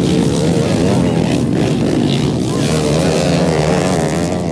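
Several racing motorcycles' engines running hard as they pass on a dirt track, their pitch wavering up and down with the throttle.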